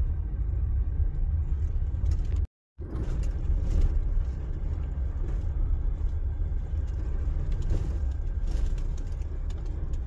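Vehicle driving on a rough dirt road: a heavy, steady low rumble of tyres and engine with scattered rattles and clicks. The sound drops out completely for a moment about two and a half seconds in.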